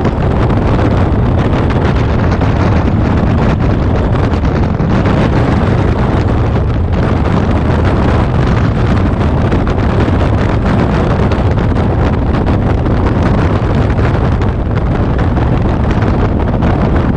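Wind rushing over the microphone of a motorcycle-mounted camera at road speed: a loud, steady, low rush, with the motorcycle's running noise mixed in.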